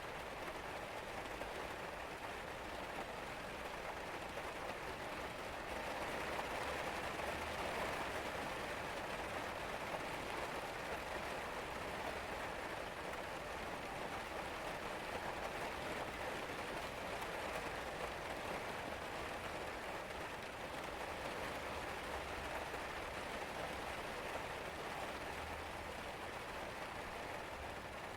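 Steady rain falling, an even hiss that grows slightly stronger about six seconds in.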